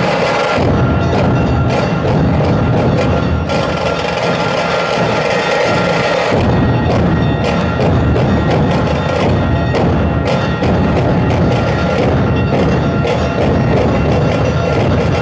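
A dhol-tasha troupe playing together, many large barrel-shaped dhol drums beaten with sticks over sharp cracking strokes, in a loud, dense rhythm. The deep dhol strokes thin out a few seconds in and come back in full about six seconds in.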